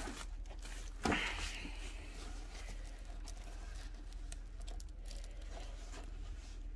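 Clear plastic film on a rolled diamond painting canvas crinkling and rustling as hands handle and curl the canvas, with one louder rustle about a second in.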